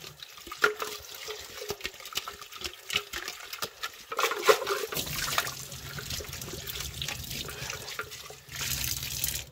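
Water running from a kitchen tap into a plastic mixer-grinder jar as it is rinsed by hand, with sharp knocks and clicks of the plastic jar being handled, mostly in the first half; the flow sounds fuller and steadier from about halfway in.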